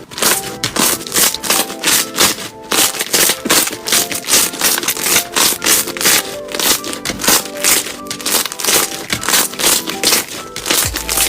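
Slime crackling and crunching in quick irregular snaps as it is pressed and squeezed, under background music with a melody.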